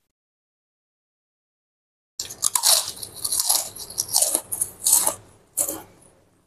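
About two seconds of silence, then loud, rapid crunching of a prawn cracker (kerupuk udang) being bitten and chewed, a run of crisp crunches that dies away near the end.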